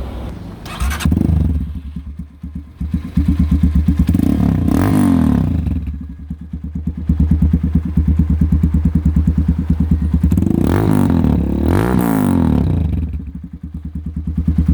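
Supergato XRF250 motorcycle engine running through its modified exhaust with no silencer, open and unmuffled. It idles with a fast, even beat and is revved up and back down several times: once about a second in, again around four to five seconds, and twice more around eleven to twelve seconds.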